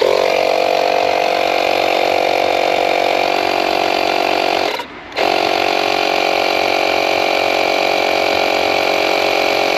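Handheld cordless tyre inflator running steadily as it pumps up a soft bicycle tyre that read only 5 PSI. It stops for about half a second about halfway through, then starts again.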